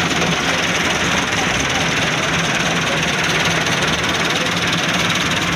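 Tractor diesel engine running steadily while it tows a chopper machine.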